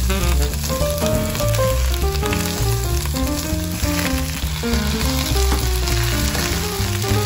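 Onion, peas, spinach and kale sizzling in coconut oil in a wok while a spatula stirs them, over background music.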